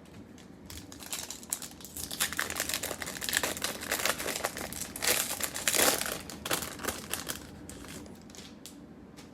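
Foil wrapper of a Topps Chrome jumbo card pack being torn open and crumpled by hand: a dense crinkling that builds about a second in, is loudest a little past the middle, and fades out near the end.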